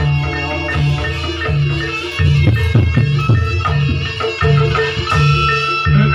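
Traditional Javanese music: hand drums and struck tuned metal keys over a steady beat, with deep low notes repeating about every 0.7 seconds.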